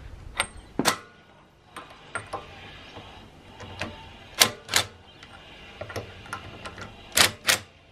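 Cordless drill with a socket on an extension running lug nuts onto an alloy wheel: a series of sharp, irregular metal clicks and knocks, with the loudest pairs about halfway through and near the end.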